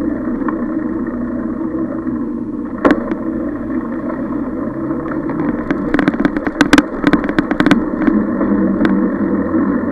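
Steady low rumble of a camera moving fast along a paved path, with rolling and wind noise and traffic beside it. There is one sharp knock about three seconds in, and a quick run of sharp rattling clicks a little after six seconds.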